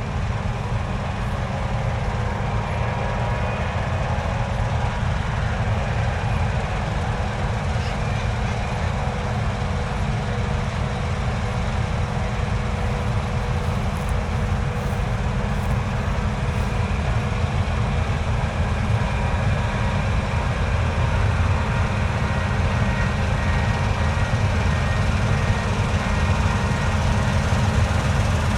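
Heavy harvest machinery running steadily: a diesel-engined combine or tractor working, a dense low engine drone with a faint steady whine above it, growing a little louder towards the end.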